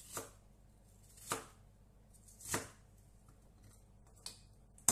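Knife slicing a red onion on a plastic cutting board: slow, separate cuts a little over a second apart, each a short sharp knock of the blade meeting the board, the last the loudest.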